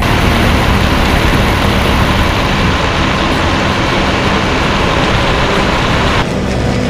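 Loud, steady rush of airflow and engine noise from a Lockheed P-38 Lightning's twin Allison V-12 engines, picked up by a camera mounted outside on the tail in flight. About six seconds in it cuts abruptly to a duller, muffled engine drone.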